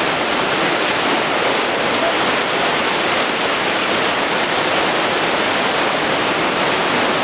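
Floodwater of the River Katonga rushing in a fast, turbulent torrent: a steady, unbroken rush of water with no let-up.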